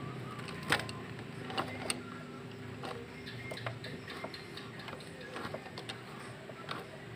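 Ratchet wrench on a long socket extension clicking in short, irregular runs as the EGR valve's mounting bolts are worked loose, over a faint steady hum.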